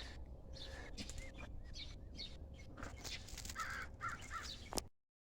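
Faint background ambience with birds calling a few times in short arched calls, and a few light clicks; the sound drops out completely for a moment near the end.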